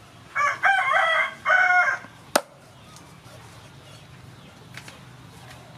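A rooster crowing once, a call of about a second and a half in three linked parts. Just after it comes a single sharp knock of a knife striking a wooden chopping board.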